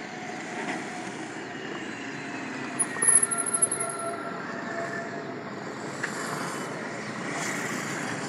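Steady road traffic noise from vehicles passing on the road, with a short stretch of louder, crackly noise about three seconds in.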